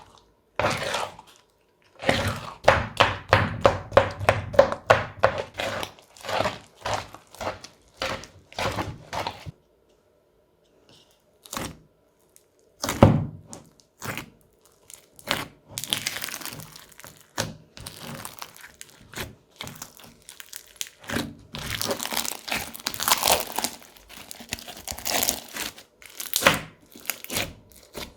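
Crunchy slime full of beads and foam pieces being squeezed and pressed: rapid runs of crackling pops and snaps, a short pause about ten seconds in, then denser crunching and crackling.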